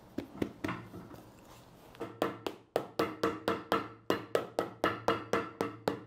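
Cobbler's hammer tapping a freshly cemented 3 mm black rubber midsole onto a boot's sole to press the glue bond. A few separate taps come first. From about two seconds in there is a quick, even run of blows, about four or five a second, each with a short ring.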